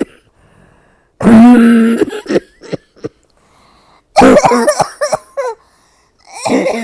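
A woman coughing from a bad cold in three bouts: a long drawn-out cough about a second in, a run of short coughs past the middle, and another bout near the end.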